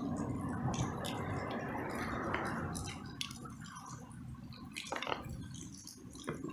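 Water dripping and splashing, louder over the first few seconds, with a few sharp knocks near the end.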